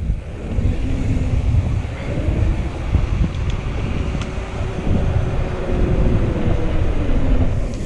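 Wind buffeting the microphone with a steady low rumble as a mountain bike rolls fast down a paved hill, its tyres humming on the asphalt, with a few small clicks and rattles from the bike.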